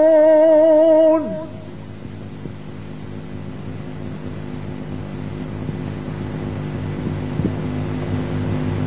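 A Quran reciter's voice holds the final note of a verse with a wavering, melismatic ornament that ends about a second in. A steady low hum follows and slowly grows louder.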